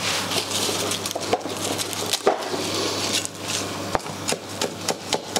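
Kitchen knife chopping fresh basil on a wooden chopping board: a run of short knocks, irregular at first, then settling into about three a second in the second half.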